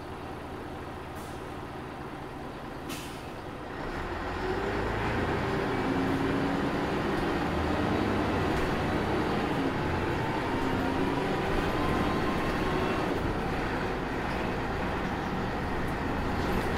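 Ikarus 280 articulated bus with a ZF Ecomat automatic gearbox, heard from inside: the diesel idles, with a short air-brake hiss about three seconds in. About four seconds in the bus pulls away, and the engine note climbs as it gathers speed.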